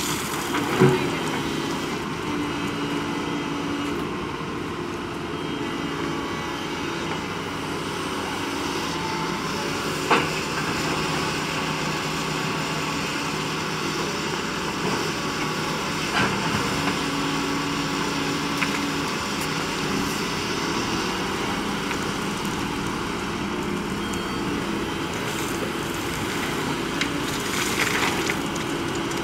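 Doosan crawler excavator's diesel engine running steadily as it loads sand and stones into a tipper truck, with a few sharp clanks as loads and the bucket strike the truck's steel bed, the loudest about a second in and about ten seconds in.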